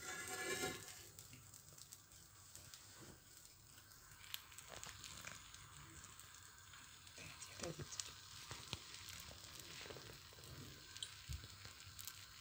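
Faint sizzling of baghrir batter cooking on one side in a nonstick pan, with scattered light crackles and ticks.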